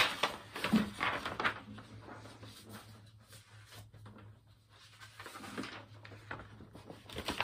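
Faint handling noises, soft rustles and knocks, with a sharper knock at the start and a click near the end, over a low steady hum.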